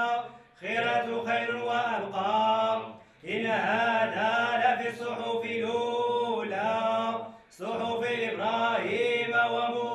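Male chanting in long sung phrases, broken by short pauses about half a second in, about three seconds in and about seven and a half seconds in.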